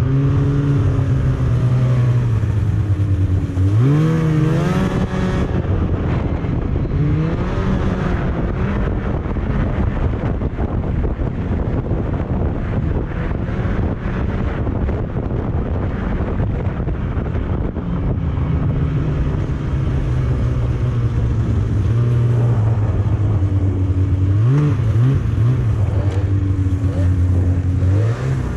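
Snowmobile engine running under way, rising in pitch as it speeds up about four seconds in, briefly again near eight seconds, and once more near the end. A steady rush of wind and track noise runs underneath.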